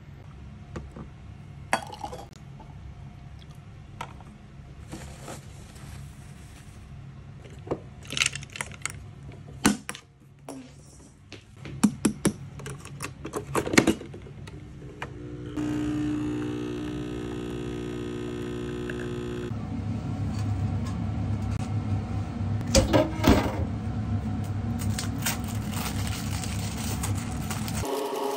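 Nespresso Essenza Mini capsule machine and its aluminium coffee capsules: clicks and clatter as the capsules are handled and one is dropped, then about four seconds of a steady machine hum that stops abruptly. After that, crinkling and clicks from a cheese slice being peeled out of its plastic wrapper.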